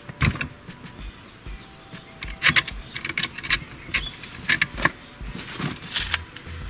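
Scattered sharp metallic clicks and clanks of a folding steel boat-seat stand as its frame is swung and its legs are set and locked in place.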